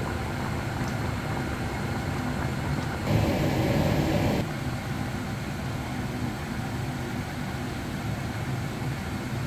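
Chicken sinigang broth boiling in a wok on an induction hob, under a steady machine hum. About three seconds in, a louder rushing noise starts abruptly, lasts just over a second and stops as abruptly.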